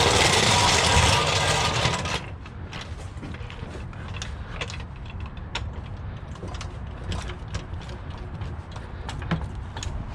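Hand wrench working a wheel's lug nut: a loud rasping, ratcheting stretch for about two seconds, then scattered metal clicks and taps.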